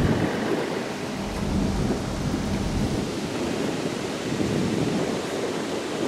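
Wind buffeting the microphone over the rush of ocean surf: a steady, noisy rushing with heavier low rumbling gusts in the first half.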